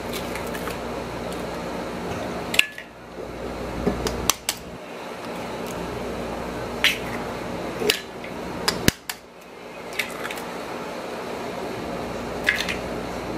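Three eggs being cracked against the rim of a stainless steel mixing bowl: a series of sharp metallic taps, several with a brief ring, spread over the time, above a steady low hum.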